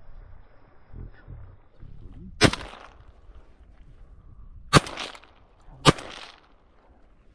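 Three shotgun shots from an Arımsan Phenoma Milita shotgun, the second about two seconds after the first and the third a second after that, each followed by a short echo.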